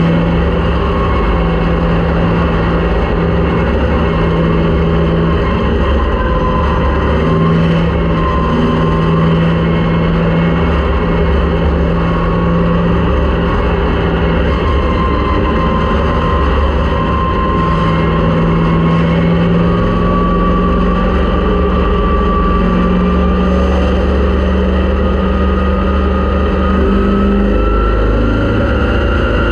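Race car engine running steadily at fairly constant revs, with a whine that rises slowly in pitch in the second half.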